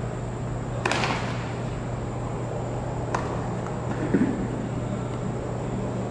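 Two sharp tennis-ball impacts about two seconds apart, echoing in a large, mostly empty stadium, over a steady low hum. A brief, louder pitched sound follows about four seconds in.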